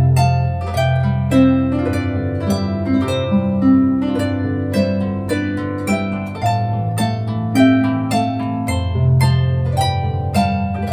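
Background harp music: a steady flow of plucked notes over longer-held bass notes.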